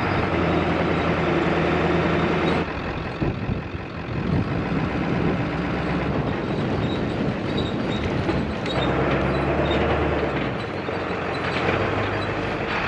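Ford F-350's 7.3 L Powerstroke diesel running as the truck camper rolls along a gravel road, with a steady low engine tone under tyre and road noise. The sound changes abruptly a few times.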